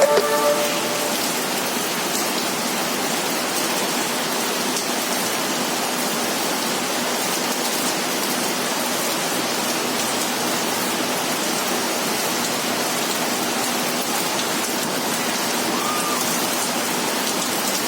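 Steady rushing noise of a running inverter split-type aircon's outdoor unit, its fan blowing air and the compressor under load as refrigerant is being charged, with a faint steady hum underneath.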